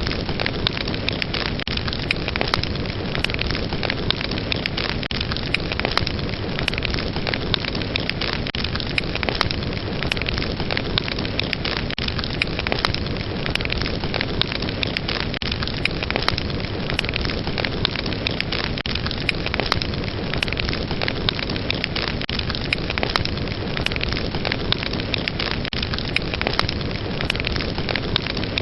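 Wood fire burning steadily, with a dense run of sharp crackles and pops over a continuous rushing hiss.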